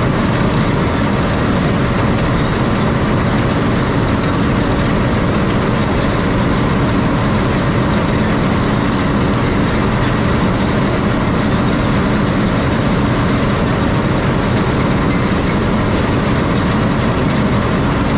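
Heavy farm machinery, a combine harvester, running steadily: a loud, constant engine and machine din.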